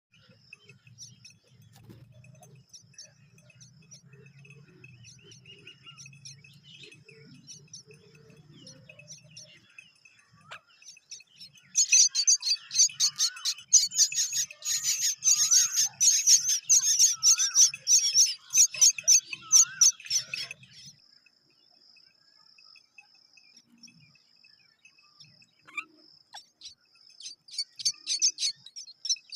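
Myna chicks giving rapid, high-pitched begging calls as they are fed, in one loud burst lasting about nine seconds that starts about twelve seconds in, and again near the end. Under the calls is a faint, steady high buzz.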